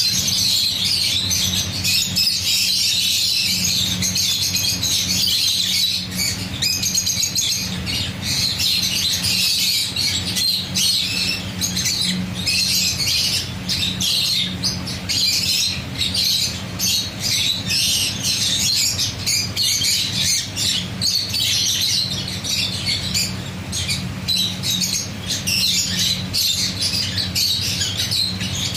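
A crowd of budgerigars chattering and squawking in many quick overlapping calls, with a steady low hum underneath.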